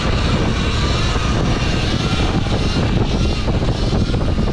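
Motorbikes riding in a group: loud, steady vehicle noise with heavy wind rumble on the microphone and faint whines that waver up and down in pitch.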